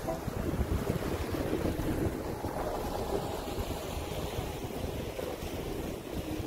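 Wind buffeting the microphone on the open deck of a moving passenger ferry, over a steady low rumble from the boat and water rushing along the hull.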